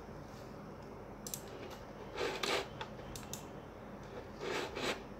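A few light, sharp clicks from a computer keyboard and mouse. There are also two louder, short bursts of noise, about two and a quarter and four and a half seconds in.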